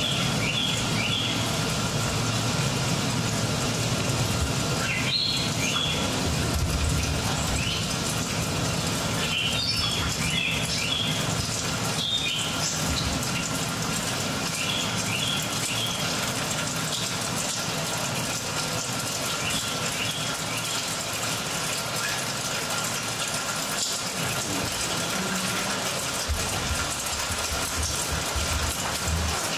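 Recorded soundscape played over a theatre sound system: bird chirps in small clusters of three or four short notes, recurring every few seconds, over a steady low rumble and hiss.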